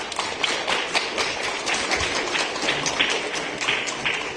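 Audience applauding: a dense, irregular patter of many hand claps, steady throughout.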